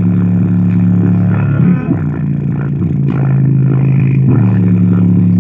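A subwoofer playing a bass-heavy R&B track loud, with long held bass notes that shift pitch every second or two.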